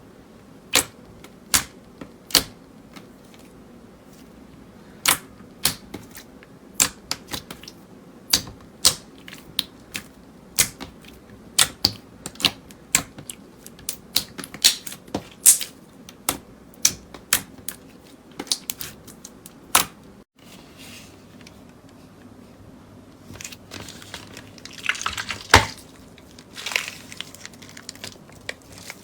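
Slime being pressed and worked by hand, giving a long run of sharp, irregular clicks and pops from trapped air. After a cut about two-thirds of the way through, it turns to denser crackling.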